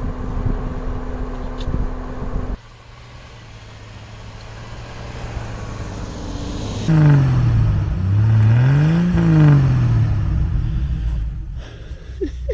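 Jeep engine running, then after a cut revving hard as it drives through deep snow. Its pitch falls, climbs and falls again over a few seconds.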